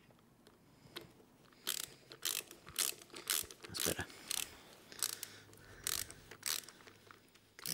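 Ratcheting screwdriver clicking in short runs as the throttle housing screws are done up, starting about a second and a half in.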